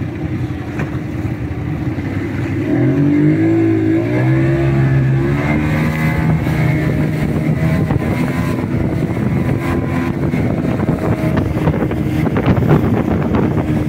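Motorboat engine running under way, rising in pitch and getting louder about three seconds in, then holding a steady drone over the rush of water and wind.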